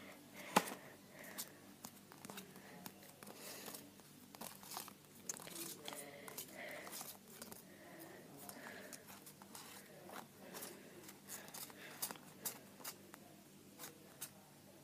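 Playing cards being dealt out one at a time onto a carpeted floor: faint, irregular flicks and slides of card on card, with one sharper snap about half a second in.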